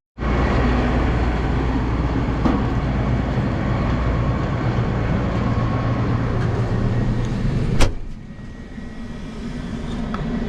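Gleaner combine running with a loud, steady engine hum. About eight seconds in a sharp clack, like the cab door shutting, and the noise drops sharply to a quieter, muffled hum.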